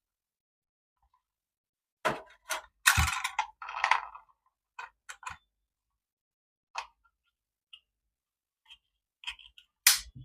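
Irregular clicks and knocks of small objects being handled, with a denser run of clattering and scraping about two to four seconds in and a sharp click near the end.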